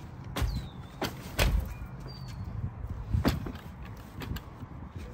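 Folded Keenz 7S+ stroller wagon being loaded into a minivan's cargo area: several clunks and knocks of its aluminium frame and plastic wheels against the cargo floor, over low handling noise.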